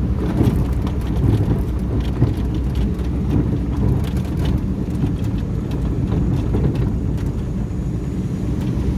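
Volvo engine running, with irregular knocks scattered over its steady low rumble: the knocking sound being diagnosed.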